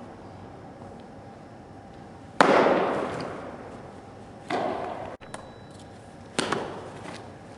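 A baseball smacking into leather gloves three times, each a sharp pop with a long echo off a large indoor hall. The loudest catch comes about two and a half seconds in, and the others about two and four seconds later.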